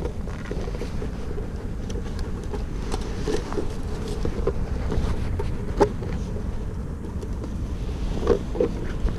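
Wind buffeting the microphone makes a steady low rumble. A few short knocks come through it, the sharpest about six seconds in and a couple more near the end.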